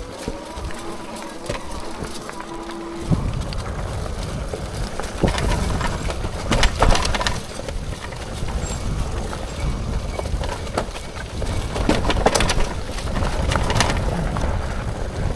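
Hitway BK10S folding e-bike ridden over rough off-road ground: wind buffeting the microphone and knocks and rattles from the bike. For the first few seconds there is only a steady whine, and the wind rumble comes in about three seconds in.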